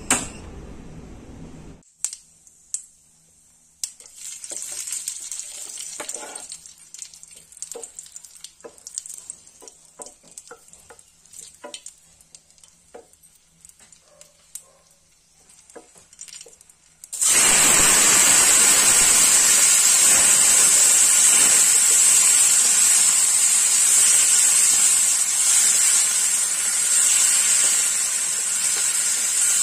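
A wooden spatula clicks and scrapes against a nonstick frying pan while a little oil fries dried chillies and cumin. About halfway through, chopped tomatoes go into the hot oil, and a loud, steady sizzle starts and carries on as they are stirred.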